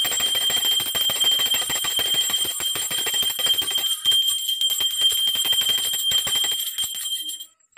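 Handheld puja bell rung rapidly and continuously during aarti, its clapper striking many times a second and the ringing held on one high note; it stops near the end.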